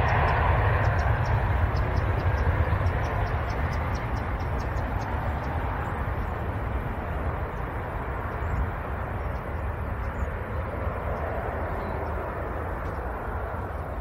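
Twin turbofan engines of an Embraer E-Jet airliner at take-off power during its take-off roll. The steady jet rumble fades gradually as the aircraft accelerates away down the runway.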